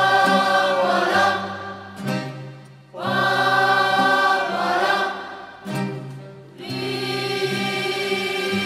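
Choir singing in long, held phrases, with short breaks between them.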